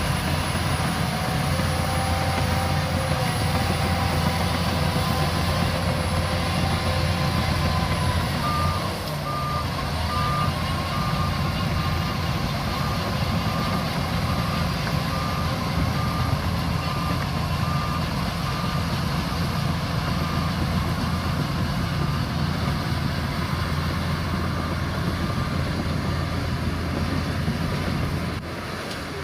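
Bulldozer diesel engine running steadily under load, with a reversing alarm starting about a third of the way in and beeping about one and a half times a second for around ten seconds.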